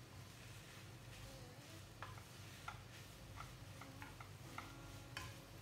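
Cooking utensil scraping and knocking against a frying pan as shredded chicken is stirred over a faint sizzle. The sharp clicks start about two seconds in and come irregularly, several to the second at times.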